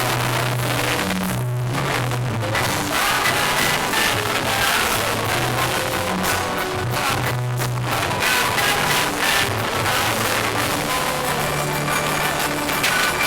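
Music playing: a song with a moving bass line under a melody.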